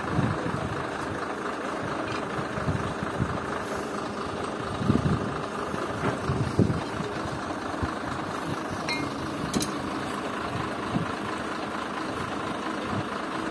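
Engine running steadily at idle, with a few dull knocks around the middle and two short metallic clinks a little later as the steel drill parts are handled.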